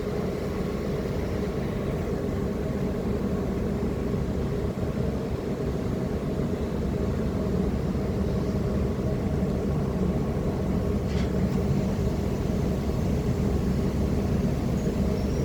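Ship's engines and machinery running, a steady low drone with several steady hum tones.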